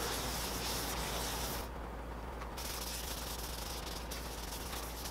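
A rag wiping denatured alcohol over a sanded resin and stabilized maple burl block: a steady rubbing hiss that thins out for about a second near the middle.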